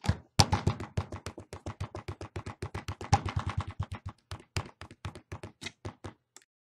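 A rapid run of sharp clicks or knocks, about eight to ten a second, that stops abruptly a little after six seconds in.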